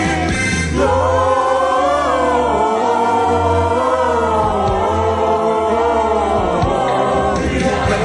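Gospel choir singing a long wordless passage over its accompaniment, the voices holding and gliding in pitch for several seconds.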